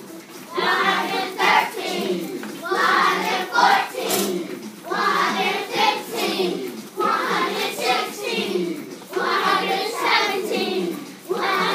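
A group of children singing together in unison, in short repeated phrases of about two seconds each with brief pauses between them.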